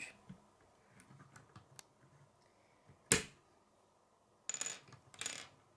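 K'nex plastic pieces being handled and fitted together: faint scattered clicks, one sharp plastic click about three seconds in, then two short rattling scrapes near the end.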